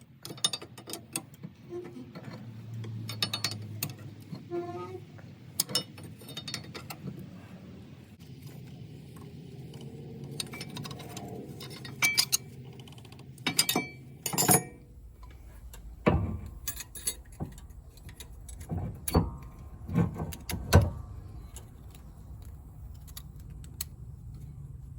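Hand tools and metal parts clinking and knocking during work on a car's rear brake, in irregular sharp clicks. Louder knocks come in the second half, the strongest just past twenty seconds.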